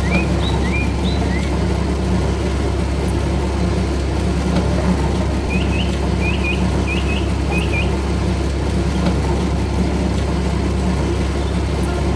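A heavy vehicle engine idling with a steady low rumble. Short high chirps sound near the start and again in a quick run around the middle.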